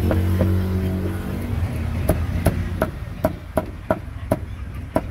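Cleaver chopping roast pork on a wooden block: sharp knocks about three a second, starting about two seconds in, with a couple more near the end. A vehicle engine runs low underneath at the start.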